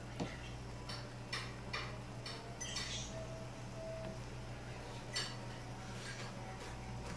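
Thick mushroom sauce simmering in a pan on a gas stove, sharp pops and clinks scattered over a steady low hum.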